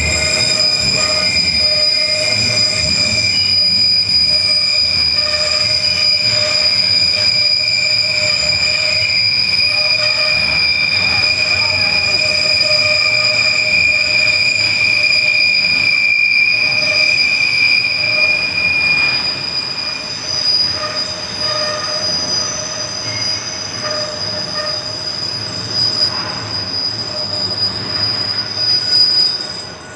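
Steel wheels of autorack freight cars squealing against the rails as they roll around a tight curve: a steady, high-pitched squeal made of several held tones over the rolling noise of the train. One of the squeal tones fades out about two-thirds of the way through, and the sound turns uneven after that.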